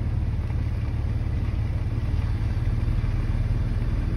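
Four-wheel drive's engine running as it drives along, a steady low rumble heard from inside the cab.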